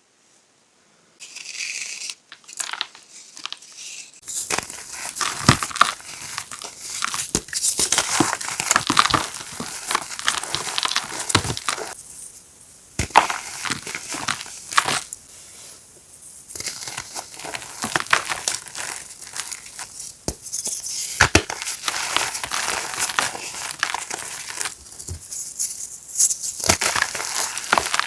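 Blocks of reformed gym chalk being crushed, crunching and crumbling with dense, irregular crisp snaps. It starts about a second in and comes in waves with short lulls between.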